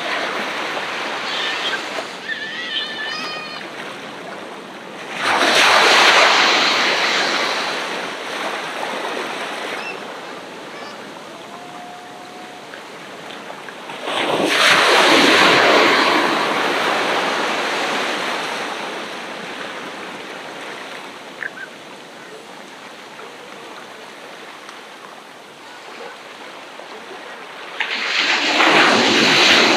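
Ocean waves breaking on a beach. Three waves crash, about 5, 14 and 28 seconds in, each rising suddenly and washing back slowly into a steady surf hiss.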